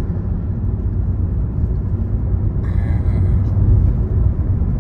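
Kia Soul running on the road, its engine and road noise making a steady low rumble inside the cabin while the engine is in a spell of intermittent misfire, which a bad ignition coil is suspected of causing. A brief faint higher sound comes about three seconds in.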